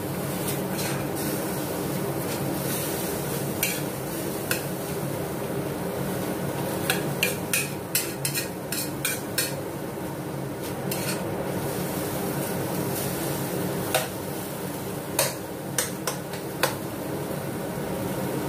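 Metal ladle stirring and scraping a beef and onion stir-fry in a stainless steel wok, with irregular clanks of the ladle against the pan, over a steady hum.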